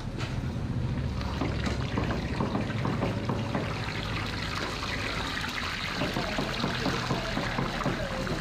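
Steady, dense sizzle and crackle of snack dough deep-frying in hot oil, growing a little brighter about halfway through.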